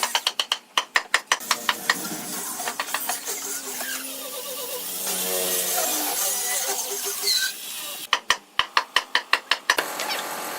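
Workshop tool mechanism clicking in two quick even runs of about five or six clicks a second, with scraping and short squeaks between the runs.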